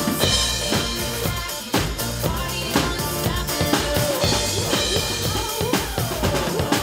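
A drum kit played along to a recorded pop backing track: a steady beat of kick drum and snare, with cymbal hits, over sustained melody lines.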